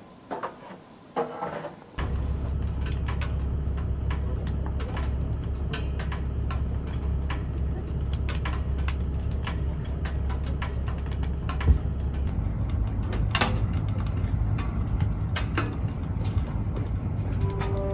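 Wood fire burning in a wood stove, with irregular crackles and pops over a steady low rumble that starts suddenly about two seconds in.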